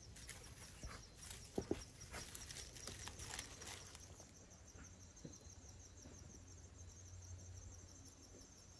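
Insects trilling faintly in the woods, a steady high pulsing trill. Over the first four seconds dry leaf litter rustles and crackles a few times, the loudest about a second and a half in.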